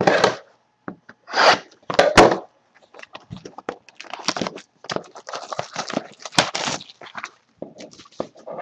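A cardboard trading-card pack being handled and opened on a table: irregular scraping and rustling with a few sharp knocks, loudest in the first two or three seconds.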